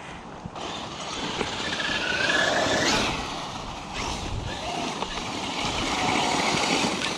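Electric RC car driving by at speed: motor whine that rises in pitch with tyre and dirt noise, swelling for a couple of seconds, easing off, then building again near the end.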